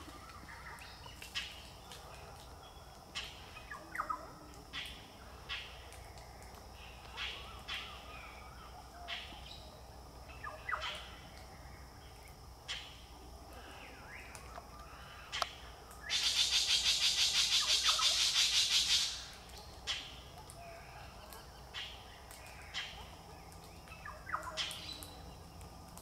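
Galahs giving short, scattered high-pitched calls, one every second or so. Some two-thirds of the way through, a loud, rapid rasping sound runs for about three seconds; it is the loudest thing heard.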